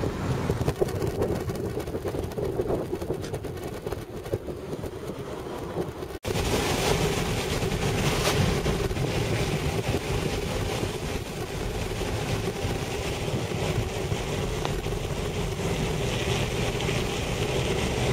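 Car cabin noise while driving: a steady engine hum mixed with tyre and wind noise. The sound cuts out for an instant about six seconds in, then comes back with a stronger hiss of tyres on a wet road.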